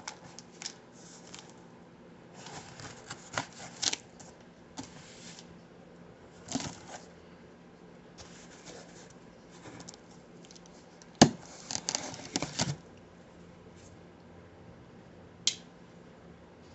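A pocketknife blade slitting the packing tape on a cardboard shipping box, in short scraping strokes with pauses between them. About eleven seconds in comes a sharp click, followed by cardboard and tape rustling.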